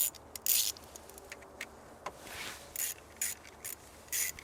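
Socket ratchet turning a 10mm bolt back in, its pawl clicking in short, irregular bursts with each return stroke.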